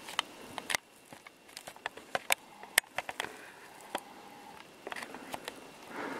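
Dry twigs and forest litter crackling underfoot: scattered sharp, irregular snaps and clicks.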